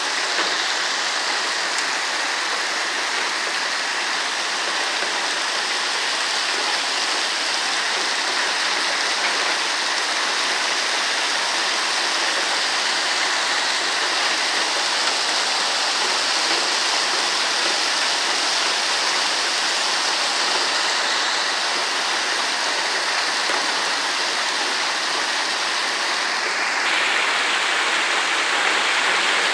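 Heavy storm rain pouring down steadily.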